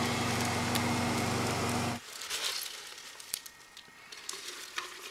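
A loud, steady electric motor hum with a fine buzz, cutting off abruptly about two seconds in. After it come quieter rustling and light plastic clicks as chopped collard and kale leaves are handled into a plastic blender jar.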